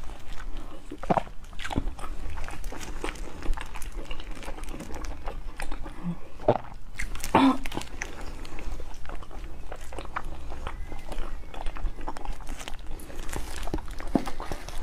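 A person biting and chewing food close to the microphone, with wet mouth smacks and clicks scattered throughout; the loudest bite comes about seven and a half seconds in.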